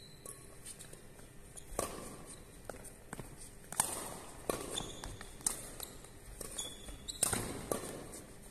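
Badminton doubles rally: rackets smacking the shuttlecock every second or two, mixed with footsteps and short squeaks of court shoes on the hall floor. The hits echo around a large hall.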